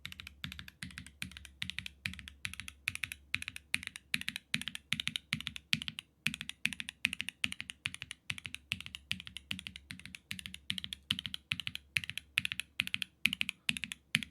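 Continuous typing on a gasket-mount mechanical keyboard with an aluminium plate and plate foam, fitted with lubed Red Jacket V1 Redux linear switches (nylon housings, 63 g springs) and GMK keycaps. Keystrokes come several a second with a brief pause about six seconds in.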